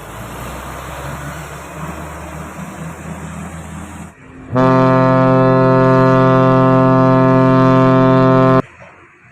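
Passing heavy-vehicle engine and road rumble, then a loud, low, single-tone air horn blast lasting about four seconds that starts and stops abruptly.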